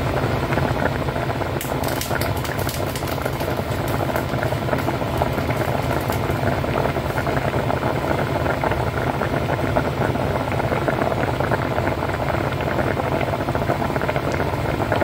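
Rice boiling in a pot of water: a steady, even bubbling and crackling.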